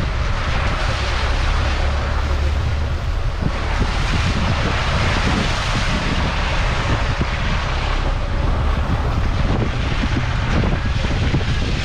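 Off-road vehicle driving along a muddy dirt track: a steady low engine and road noise, with wind buffeting the microphone on the outside of the vehicle.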